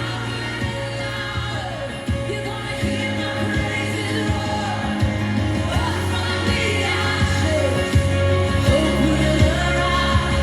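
Pop song with singing played through a Trust Tytan 2.1 computer speaker set, with a steady tone held underneath throughout.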